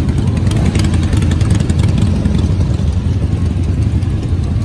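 Many motorcycle engines running together at low revs as a group of bikes idles and rolls off slowly, with a rapid ticking clatter over the engine sound in the first couple of seconds.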